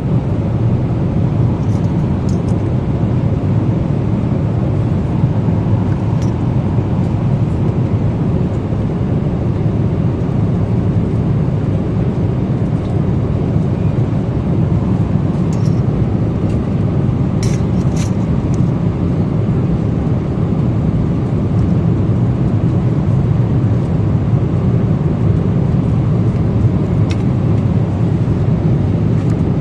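Airliner cabin noise in flight: a steady, even low rumble of engines and rushing air. A few faint clicks come about halfway through.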